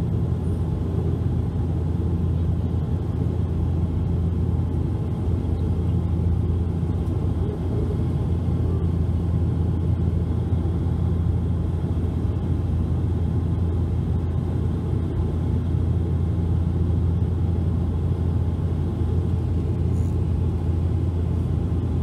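Steady low drone of a Bombardier Dash 8 Q400's turboprop engines and six-bladed propellers in cruise, heard from inside the passenger cabin.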